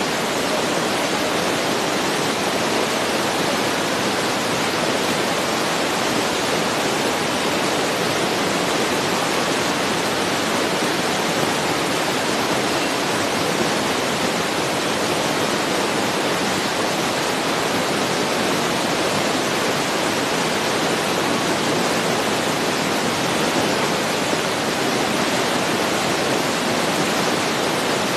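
Loud, steady hiss like static that covers everything, with no distinct sounds from the game coming through.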